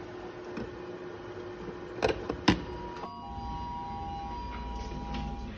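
A glass lid set on a stainless-steel cooking pot, clinking twice about two seconds in over a faint steady hum. About three seconds in the sound changes to the low rumble of an elevator, with a few thin steady tones above it.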